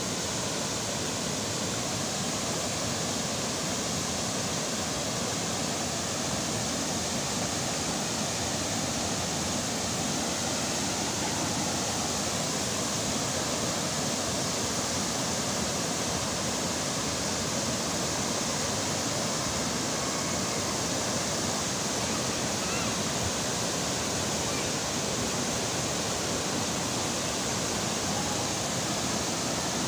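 Steady rushing of water pouring over a dam spillway and a low weir, a constant roar without breaks.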